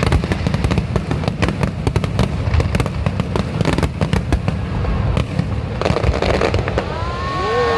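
Fireworks finale: a dense, rapid barrage of bangs and crackling bursts. Near the end, several whistling tones join in, gliding up and then down in pitch.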